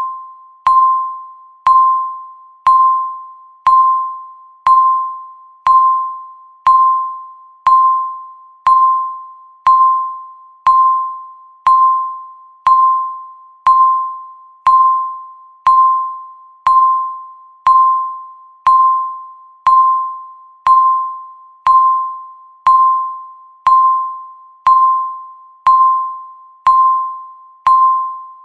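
Countdown timer's tick sound effect, one per second: each tick starts sharply as a single bell-like tone that fades away before the next one, in a steady, even beat.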